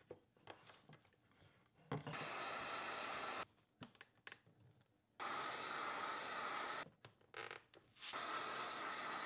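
Electric heat gun blowing hot air onto an acrylic sheet to soften it for forming, heard in three stretches of a second or two that start about two seconds in. Between them come quiet gaps with small clicks and knocks of hands working the clamps.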